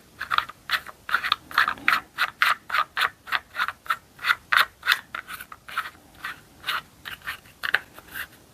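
Repeated plastic clicks and scrapes, about three a second, from handling the Ferm 12 V cordless mini chainsaw and working its safety button and trigger; the motor does not start.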